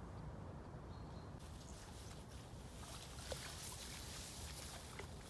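A West Highland white terrier pushing through tall waterside grass at the lake edge: rustling that starts about a second and a half in, with small clicks and splashes, over a steady low rumble of wind.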